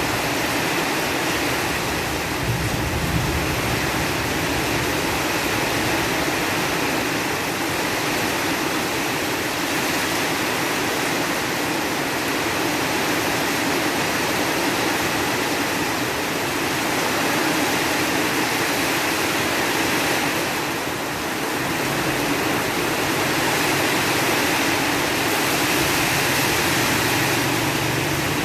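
Storm rain and wind making a steady, even rushing noise, with no let-up.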